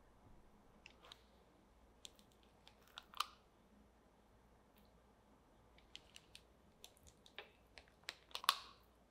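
Metal spring-release cookie scoop clicking and tapping as its handle is squeezed to drop soft brownie dough. There are scattered sharp clicks, the loudest about three seconds in and a cluster near the end.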